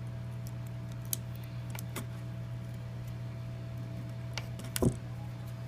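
Scattered light clicks and taps from handling a phone and small repair tools, with one louder knock near the end, over a steady low hum.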